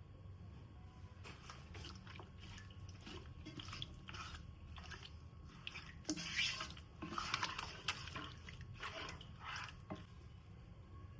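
Irregular splashing and dripping of water, as in a kitchen sink, in uneven strokes that are loudest around the middle.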